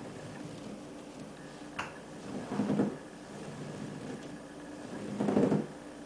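Exercise sounds from stability-ball hamstring curls: two short swells of rubbing, rushing noise about two and a half seconds apart, one for each rep, over a steady low hum of room noise, with a small click shortly before the first.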